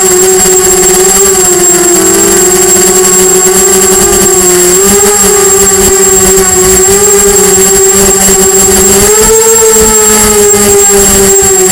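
Diatone Blade 250 quadcopter's brushless motors and propellers whining in flight, heard close from its onboard Mobius camera. The pitch wavers up and down with the throttle, rising about nine seconds in and settling again, over a steady high-pitched whine.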